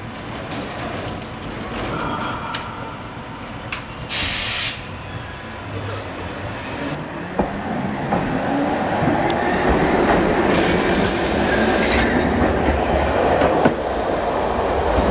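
Hankai Tramway Mo501-type tram no. 504 pulling away from a stop: a short burst of hiss about four seconds in, then its traction motors whine rising in pitch as it accelerates, with wheels clicking over the track and the sound growing louder toward the end.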